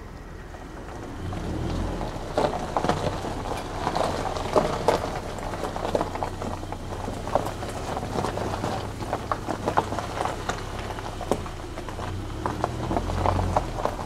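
Footsteps crunching through dry overgrown brush and weeds, with leaves and stems rustling and snapping in short irregular crackles, starting about a second and a half in.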